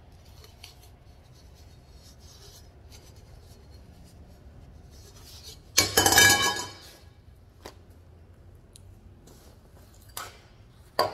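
Welded mild-steel intake pipe set down on a steel workbench about six seconds in: a loud clank that rings briefly in several metallic tones. A few lighter knocks of tools laid on the bench follow near the end.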